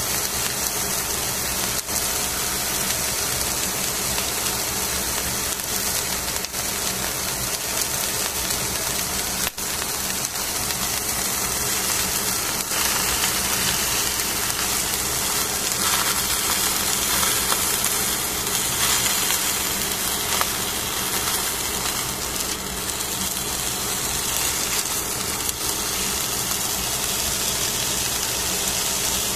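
Fish fillets sizzling on aluminium foil in a pan, a steady hiss over a constant low hum.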